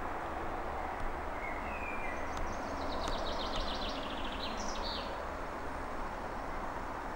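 A small songbird sings one short, rapid song of repeated high notes over a steady rushing background noise.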